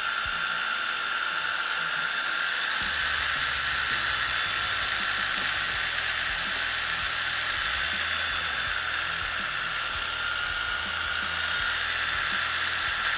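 Milwaukee Fuel cordless impact driver running on low speed with no load, a steady high-pitched motor whine as it spins a loose screw held on the bit. There is no hammering from the impact mechanism.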